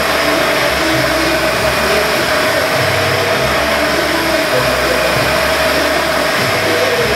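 Arm-mounted glass polishing machine running, its wheel working the surface of a cast glass sculpture: a loud steady whir with a constant tone and an uneven low rumble underneath.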